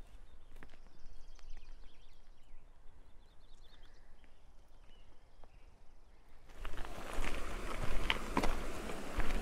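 Faint footsteps and scattered clicks on a dirt path with birds chirping. About six and a half seconds in, this gives way abruptly to the loud rolling rattle and knocks of the Pack Wheel cart's single bicycle tyre going over a stony trail, with wind on the microphone.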